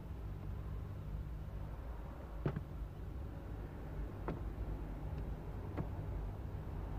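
A few short clicks and ticks from hands working on a car's wiring loom under the dashboard, the sharpest about two and a half seconds in, over a steady low hum.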